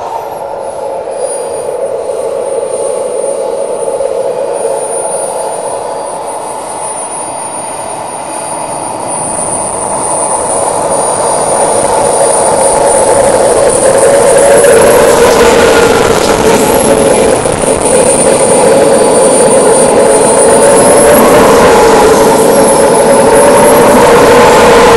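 Radio-controlled model jet's engine whining steadily while it taxis, growing louder as it approaches. The high whine dips and comes back up several times in the second half as the throttle is worked.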